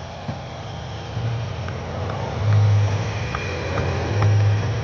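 Lockheed Martin C-130J Hercules flying past, its four Rolls-Royce AE 2100 turboprops and six-bladed propellers giving a steady low drone that swells louder about halfway through.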